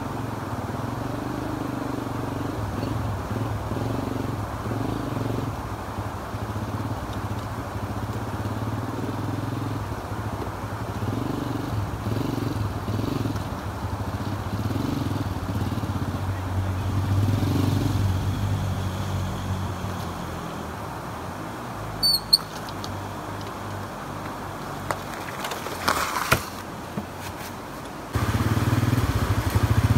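Motorcycle engine running steadily at low revs. A few sharp clicks come late on, and near the end the engine suddenly sounds closer and louder.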